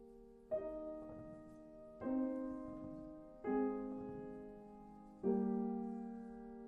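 Slow piano chords, four struck about a second and a half apart, each ringing and fading before the next.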